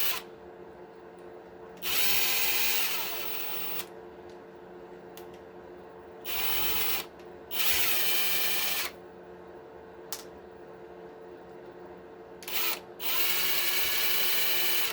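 Small cordless power drill/driver whirring in five short runs, the longest about two seconds and one only a brief blip, its pitch rising and falling as it backs out screws to take apart an RC truck's plastic axle differential housing.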